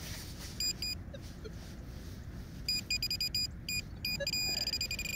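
Minelab Pro-Find 40 pinpointer beeping: two short high beeps, then a fast run of beeps that merges into a nearly steady tone near the end, the alert speeding up as the probe closes in on a buried target.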